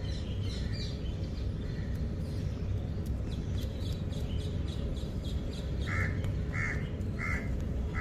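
A crow cawing four times in quick succession near the end, over a steady low hum. Faint small-bird chirps come earlier.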